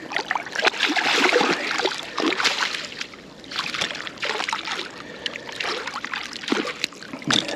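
Water splashing and sloshing around a landing net holding a freshly caught rainbow trout, in irregular bursts with a short lull about three seconds in.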